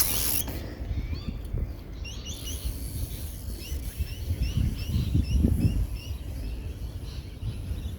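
Small birds chirping: many short, rising notes repeated every fraction of a second, over a low rumble of wind.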